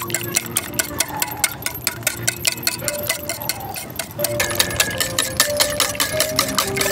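Wire whisk beating eggs in a stainless steel bowl, its wires clicking against the metal in a rapid, even rhythm of several strokes a second. It grows louder about four seconds in.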